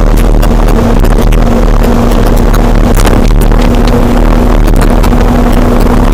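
Loud wind noise rushing over an action camera's microphone on a bicycle descending at about 40 mph, with a steady hum.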